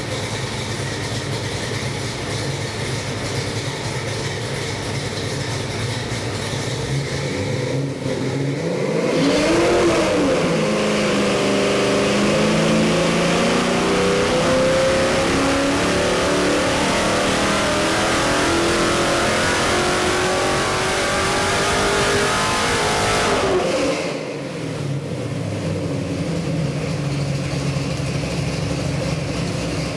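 Carbureted Ford 363 stroker small-block V8 on an engine dyno: idling, then after about eight seconds a quick rev, then a steady climb in pitch and loudness as it is pulled through a full-load RPM sweep. The note cuts back to idle at about 24 seconds when the test run ends.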